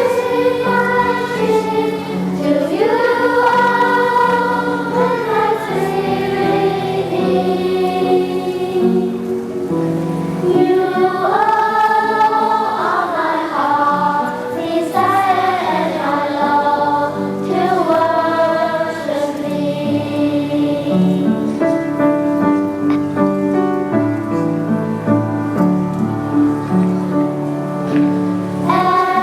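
A choir singing a slow song in several parts, the voices holding long notes and moving together from chord to chord.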